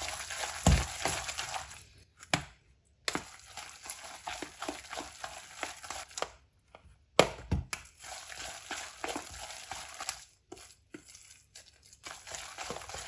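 A spoon stirring and scraping through a moist grated-turnip and egg mixture in a plastic bowl: a run of short irregular scrapes and squelches with a few brief pauses. Two louder knocks come about a second in and again past seven seconds.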